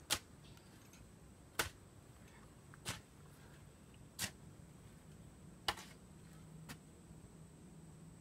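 A short hand shovel striking and scraping into packed earth, digging: six sharp strikes at a steady pace, about one every second and a half, the last one fainter.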